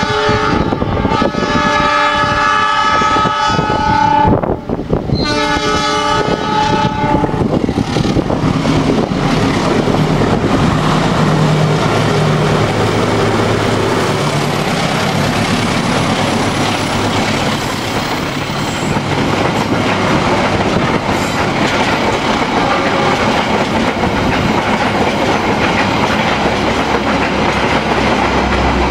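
A KAI CC206 diesel-electric locomotive sounds its multi-note horn in two long blasts, the first about four seconds and the second about two, then passes with its engine drone, followed by its passenger coaches rumbling by with wheels clacking over the rail joints.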